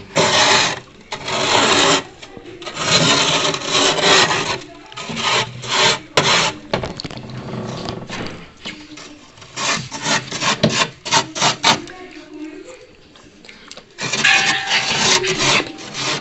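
Freezer frost being scraped off the freezer wall in rasping strokes. Long strokes of about a second come first, then a run of short quick scrapes, a brief pause, and a few more long strokes near the end.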